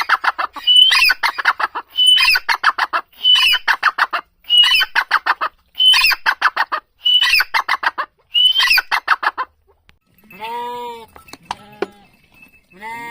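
A bird repeating the same loud call eight times, about a second apart, each a sharp rising note followed by a fast run of harsh notes. Near the end come two longer, lower drawn-out calls.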